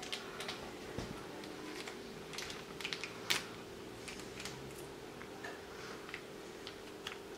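Plastic sauce sachets crinkling and being torn open and squeezed by hand: faint scattered rustles and small clicks, with a sharper tick a little past three seconds. A steady faint hum runs underneath.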